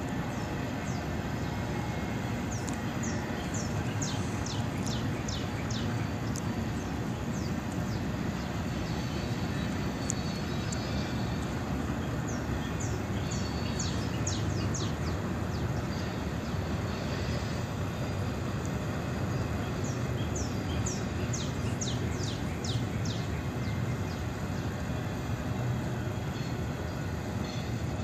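CSX freight train cars rolling past at a distance: a steady, even rumble. Three short bouts of quick, high, falling chirps sound over it.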